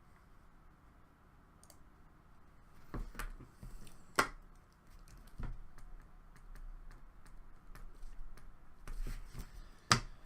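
Scattered sharp clicks and light knocks of objects being handled on a desk, with two louder clicks about four seconds in and near the end.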